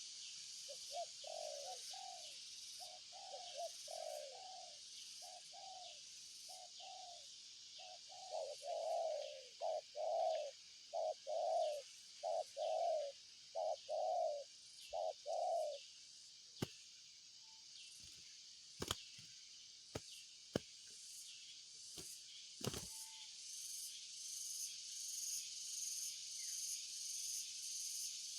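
Spotted dove (tekukur) cooing: a run of repeated coos lasting about fifteen seconds, then stopping, followed by several sharp clicks. A steady high insect buzz runs underneath, pulsing near the end.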